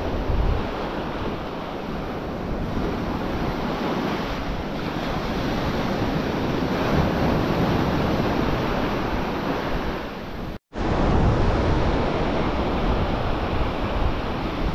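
Rough ocean surf breaking and washing up a beach, with wind on the microphone. The sound cuts out for an instant about two-thirds of the way through, then the surf returns a little louder.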